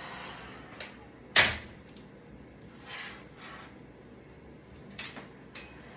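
A box cutter blade twisted and pried between an iPad's glass digitizer and aluminum body, making a few sharp clicks and snaps, the loudest about a second in, as the screen adhesive is worked open.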